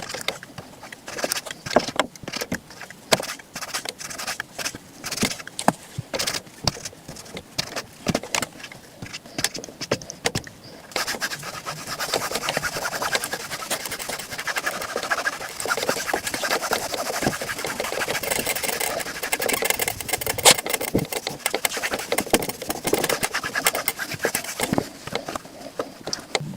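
Shoe-shine work on a leather boot: separate quick brush strokes and taps for about the first ten seconds, then fast, continuous brushing or buffing.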